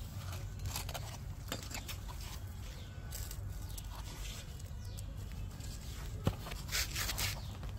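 Faint handling noises from repotting a marigold: soft rustling and scattered taps as the small plastic pot is squeezed and the plant's root ball is worked loose, with one sharp tap a little after six seconds, over a low steady rumble.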